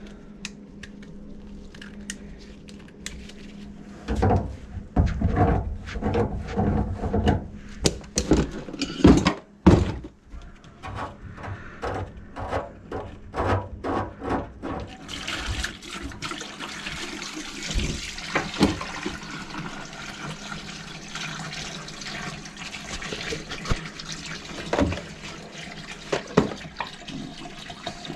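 Knocking and clattering as a drain-cleaning cable and tools are handled at an opened kitchen sink drain. About halfway through, a steady rush of water starts, running and splashing into a bucket under the drain pipe, with an occasional knock.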